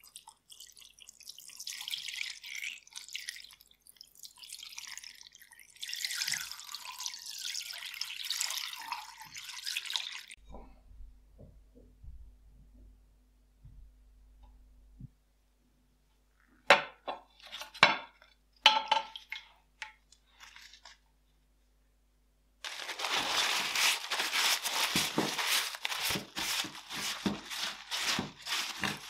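Liquid rust remover poured in a thin stream into a glass dish over a rusty revolver, splashing for about ten seconds. After a quiet stretch come a few sharp knocks. Then, from about two-thirds of the way in, the wet steel revolver is scrubbed with rapid rubbing strokes.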